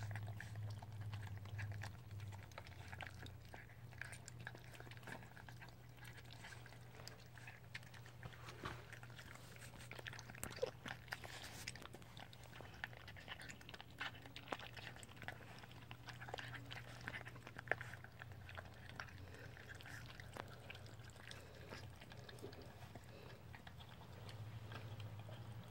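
Puppies crunching dry kibble from a bowl, with quiet, irregular crunches and clicks. A steady low hum runs underneath.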